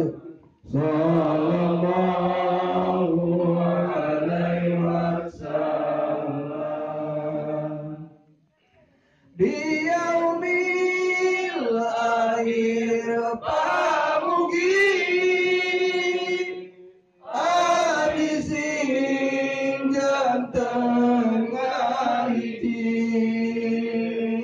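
A man chanting an Islamic devotional song (sholawat) into a microphone, amplified through a loudspeaker, in long drawn-out sung phrases with short breaks about 8 and 17 seconds in.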